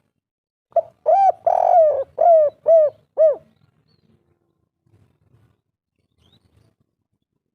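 Spotted dove (tekukur) cooing one phrase of about six notes, the 'kuk 3' song type, starting about a second in and lasting some two and a half seconds, with one longer note in the middle of the phrase.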